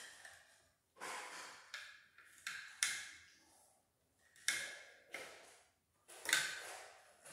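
Short, scratchy rustling and scraping noises from stiff electrical wires being bent and twisted together by hand at a switch box, about half a dozen sudden bursts with quiet gaps between.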